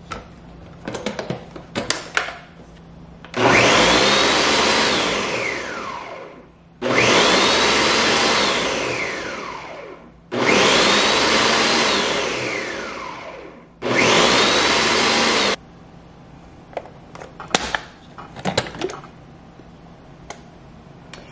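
Ninja countertop blender blending thick banana-oat pancake batter in four pulses of a few seconds each. In each pulse the motor whine climbs to a high pitch, then slides down before cutting off. Clicks and knocks from handling the lid and jar come before and after.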